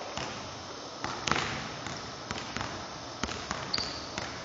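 Basketball dribbled on a hardwood gym floor during one-on-one play: a series of irregular bounces, the loudest about a second in, with one short high squeak near the end.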